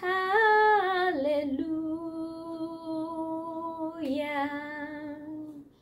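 A woman singing a worship chorus unaccompanied, drawing the last phrase out into long held notes: a short higher note that steps down, then one long steady lower note that changes vowel about four seconds in and stops just before the end.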